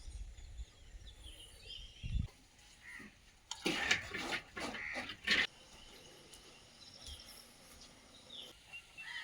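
Birds chirping. A run of several louder animal calls comes about four seconds in.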